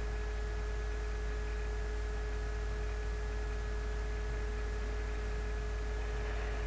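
Steady electrical hum, a low drone with a couple of constant higher tones over an even hiss, unchanging throughout.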